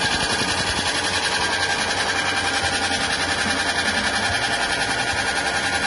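Belt-driven soybean hull-peeling machine running steadily, with a fast, even pulse, as soaked soybeans pass through it and are dehulled.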